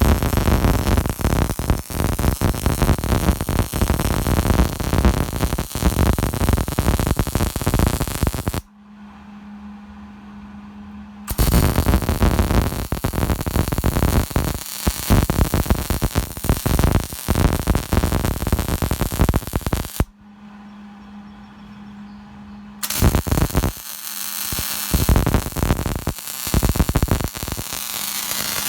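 MIG welding arc crackling and sputtering in three long beads, stopping twice for a couple of seconds. A steady low hum carries on in the pauses.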